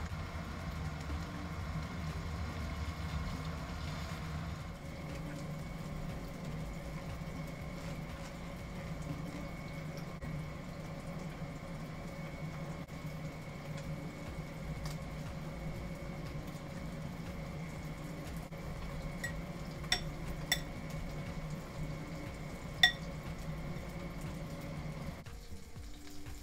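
Liquid pouring from a pot into a glass bowl of sliced vegetables, over a steady low hum, with three sharp clinks late on.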